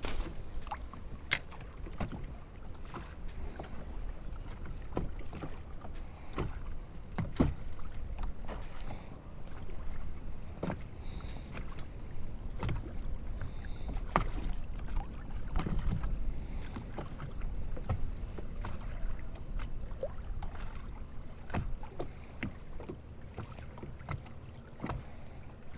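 Small waves lapping and slapping against a boat hull, with low wind rumble and scattered light knocks.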